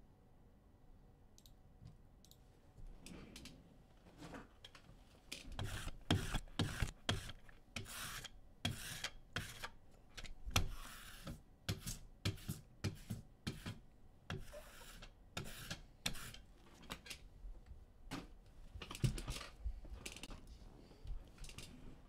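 Irregular clicking, tapping and rustling handling noises, sparse at first and much busier from about five seconds in.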